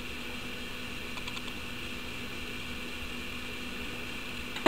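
Low, steady background hiss with a few faint soft ticks about a second in and a short click near the end.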